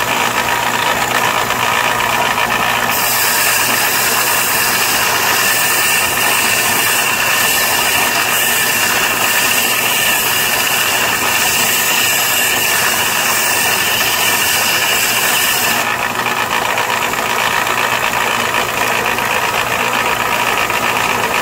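Delta belt sander running steadily with its motor hum. From about three seconds in to about sixteen seconds, the carbide tip of a Green Teeth stump grinder tooth is pressed against its 80-grit silicon carbide belt, adding a loud grinding rush that stops when the tooth is lifted away.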